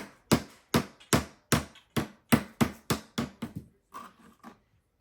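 A small hammer striking a block of ice again and again, about two to three sharp knocks a second, a dozen or so in all, growing softer near the end and then stopping.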